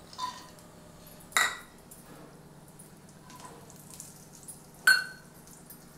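Metal kitchen utensil clinking against cookware four times, each clink ringing briefly, the second and fourth the loudest, over a faint steady low hum, as cashews and raisins go into ghee in a frying pan.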